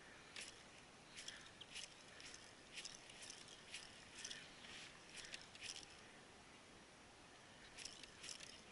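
Near silence: faint outdoor background with soft, scattered high-pitched ticks, clustered in the first six seconds and again near the end.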